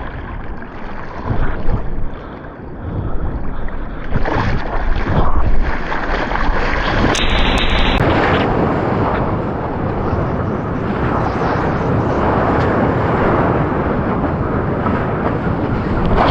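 Surf sounds on an action camera's microphone: splashing water in the first few seconds, then a steady rush of ocean water and whitewater with wind buffeting the microphone.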